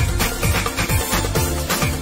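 Upbeat pop music with a steady drum beat.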